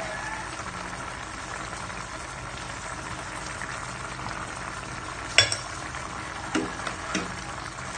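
Tomato-and-smoked-fish broth bubbling at a boil in a pan, a steady bubbling hiss. A sharp click about five seconds in and two dull knocks near the end.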